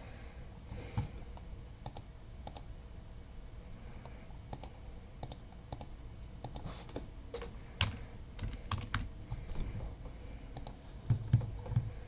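Faint, scattered clicks and taps of a computer mouse and keyboard, coming more often from about the middle on.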